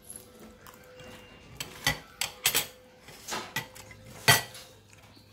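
Metal spoons clinking and scraping against a ceramic bowl of scrambled egg: a string of sharp clinks, the loudest about four seconds in.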